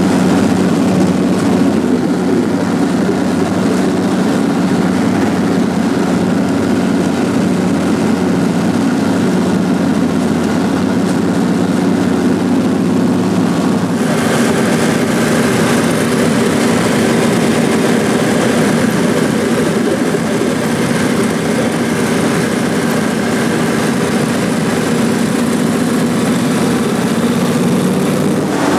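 The Bushmaster 2000 Trimotor's three Pratt & Whitney R-985 radial engines and propellers droning steadily, heard from inside the cabin in flight. About halfway through the sound shifts abruptly, with more hiss and a slightly different pitch.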